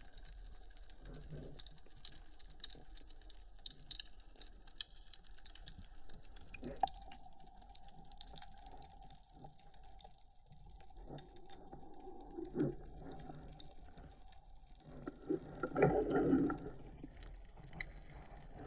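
Underwater sound picked up by an action camera on a freediving spearfisher: a steady crackle of small clicks, with a faint steady hum through the middle. Louder knocks and rubbing from the diver's own movement come about twelve seconds in and again near sixteen seconds.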